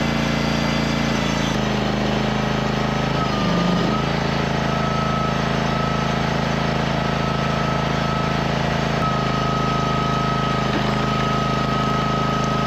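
Portable band sawmill running steadily, its engine holding an even pitch; about one and a half seconds in the sound shifts slightly and a steady high whine sets in over the engine.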